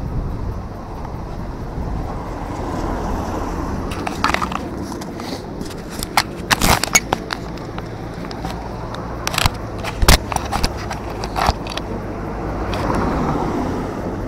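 Steady low outdoor rumble, broken in the middle by a run of sharp clicks and knocks, with a swelling rush of noise near the end.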